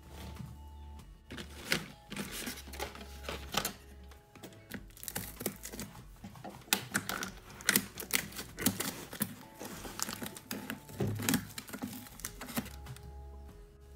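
A cardboard shipping box being handled by hand, with irregular taps, knocks and scratches on the cardboard and its packing tape, over soft background music.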